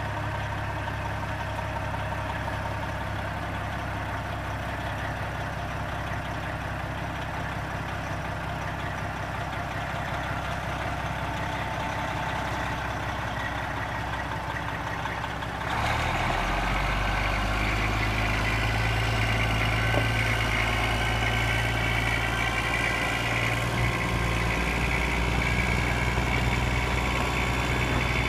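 1994 Kenworth T800 dump truck's diesel engine idling steadily. About sixteen seconds in the sound suddenly gets louder and fuller, with a higher whine over the idle.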